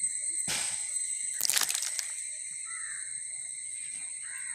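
A crow cawing twice, harsh and short, the second caw louder, over a steady high-pitched insect drone.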